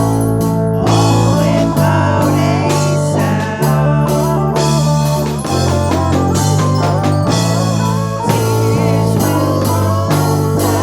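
Instrumental rock music: guitar over bass and drums, with no singing.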